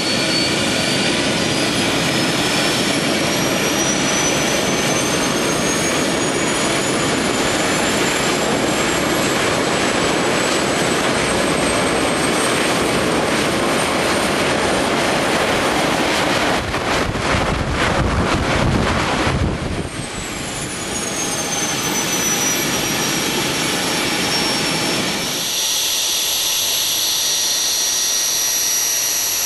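GR-7 homemade turbocharger-based turbojet engine running, a loud roar with a high compressor whine that rises steadily through the first third. After a brief stretch of rough rumbling about two-thirds in, the whine falls and the roar drops. Near the end only a lighter whine with a hiss remains, as the engine keeps running at a lower setting.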